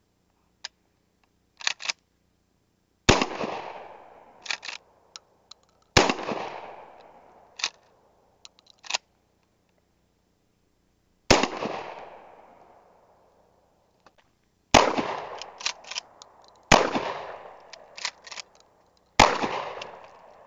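Six blasts from a Winchester SXP 12-gauge pump-action shotgun with an 18-inch barrel, the first about three seconds in and the last near the end, each followed by an echo that dies away over a couple of seconds. Between shots come short clacks of the pump action being racked.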